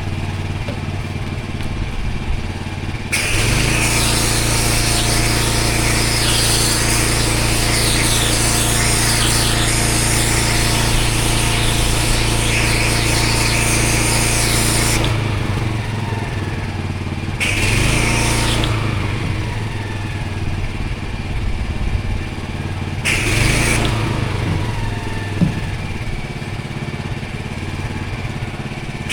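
Pressure washer engine running steadily, with the high-pressure water jet hissing onto block paving in one long spell of about twelve seconds starting about three seconds in, then two short blasts later.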